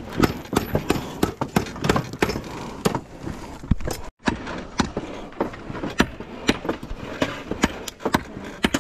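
Hand hammer blows on hot steel at an anvil, forging a knife blade, about three strikes a second. The sound breaks off for an instant about four seconds in.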